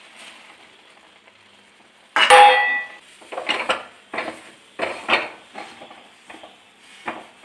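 A metal kadai: one loud clang that rings briefly about two seconds in, then a run of short rubbing, scraping strokes as the emptied pan is wiped out with a cloth to clear the lemon residue.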